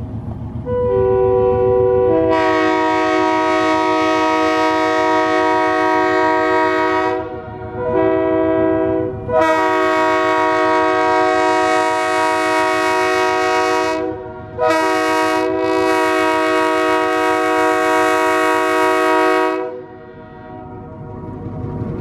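Diesel locomotive's air horns blowing as the train approaches: four blasts, long, short, long, long, each a chord of several steady notes sounding at once. The engine's low rumble is heard before and after the horn.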